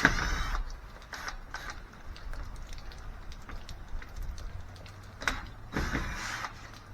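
Cordless drill-driver with a square (S2) bit spinning briefly twice to back out camper shell handle screws, its motor whirring up and down in pitch, with a few light clicks of the bit and screws in between.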